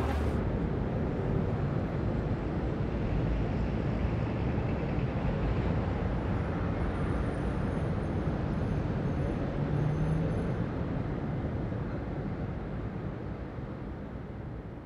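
Steady rumble of city traffic noise, slowly fading out over the last few seconds.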